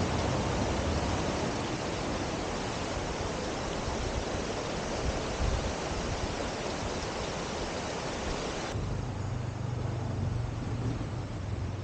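Rushing water of a mountain stream, a steady hiss of flowing water. Near the end it changes abruptly to a softer, duller rush with more low rumble.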